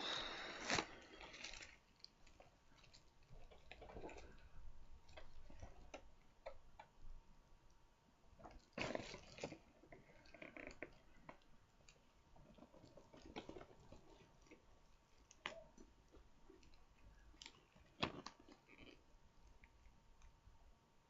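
Faint crinkling and tearing of plastic shrink-wrap being pulled off a cardboard model-kit box, in scattered bursts with light clicks, loudest at the start, about nine seconds in and once near the end.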